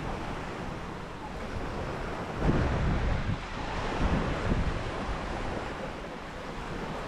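Small waves washing onto a sand beach, with wind buffeting the microphone in low rumbling gusts, strongest about two and a half seconds in and again around four seconds.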